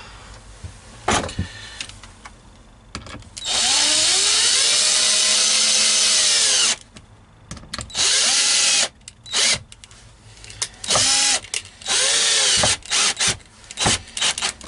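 Cordless drill driving wood screws into a wooden board. There are a few knocks first. Then comes one long run whose motor pitch rises and then falls, followed by a string of short trigger spurts as the screws are run home.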